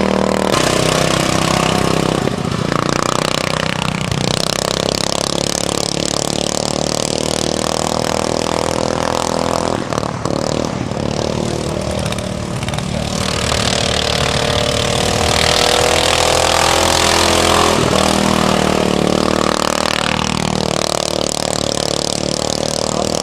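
Small-engine racing lawnmowers running at the track, their engine pitch rising and falling as they rev.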